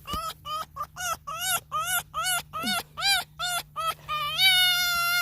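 Pet fox calling in a rapid series of short, high-pitched squeaks, about three a second, ending in one longer drawn-out whine near the end.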